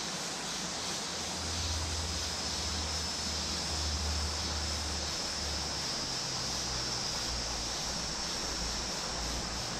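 Steady rushing hiss of a small stream's flowing water, with a thin steady high-pitched tone above it and a low rumble in the first half.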